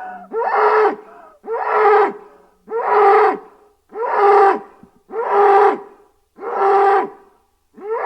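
Ankylosaurus dinosaur sound effect: six matching pitched calls repeating about once every 1.2 seconds. Each call is held briefly and drops in pitch at its end.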